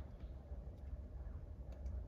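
Wood fire in a wood-burning stove crackling faintly, a few soft ticks and pops scattered over a low steady rumble.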